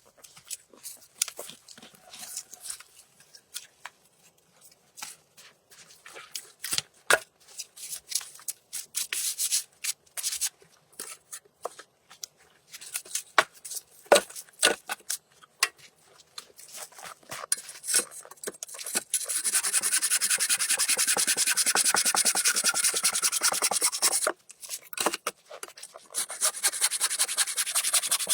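Handsaw cutting through wood with rapid, even strokes, starting about two-thirds of the way in, pausing briefly, then resuming; the saw is blunt and hard going. Before the sawing, scattered crunches and snaps of wood and twigs being handled.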